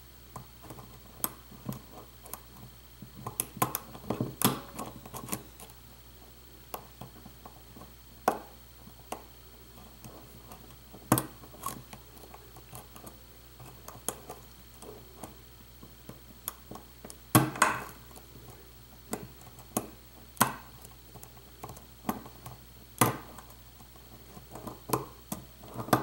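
Lock pick working the pins of a euro-profile cylinder lock held under a tension wrench, making irregular small metallic clicks and crunching. Several sharper clicks come in the last third.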